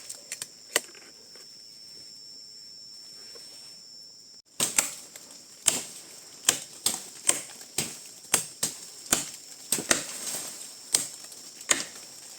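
A series of sharp, irregular knocks, about one or two a second, over a steady high hiss. There are a few strikes at the start, a pause, then steady striking from about four and a half seconds in.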